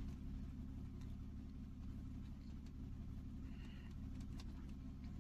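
Jaguar XF diesel engine idling steadily, a faint even hum. It runs smoothly with no vibration now that the cylinder 1 misfire has been fixed.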